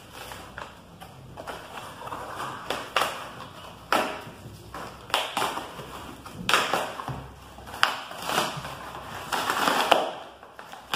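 Cardboard book mailer being torn open by hand: an irregular run of ripping and crinkling, with several sharp rips, the loudest near the end.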